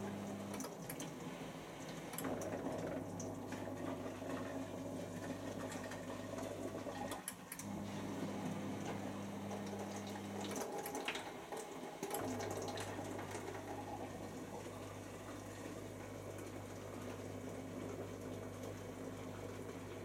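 Bosch Classixx dishwasher running mid-cycle: water rushing and spraying inside the closed tub over a steady low pump hum. The hum drops out briefly three times.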